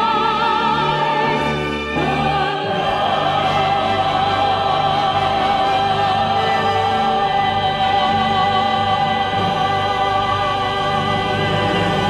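Orchestral Christmas music with operatic singing. From about two seconds in, voices with a wide vibrato hold one long high note over sustained low orchestral notes, the final note of the piece.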